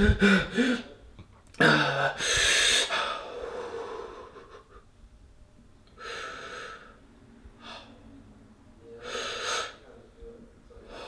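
A man breathing hard and gasping: a loud rasping breath about two seconds in, then several shorter, quieter heaving breaths spaced a few seconds apart.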